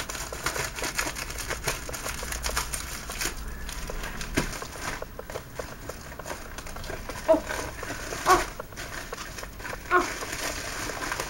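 Scissors cutting open a plastic mailing bag and the wrapping inside being pulled apart: plastic crinkling and rustling throughout. Three short pitched sounds stand out in the second half.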